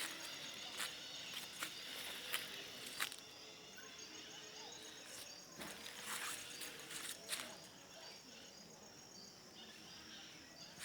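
Faint outdoor ambience: insects chirring steadily in a high repeating pulse, with scattered short clicks.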